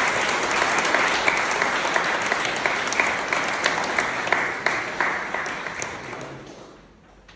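Audience applauding. The clapping thins out and dies away near the end.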